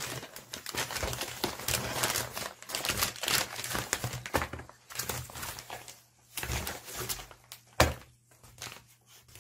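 Plastic postal mailer crinkling and rustling as it is handled and the packages inside are pulled out, with light clicks and knocks of items on a desk. A single sharp knock a little before the end is the loudest sound.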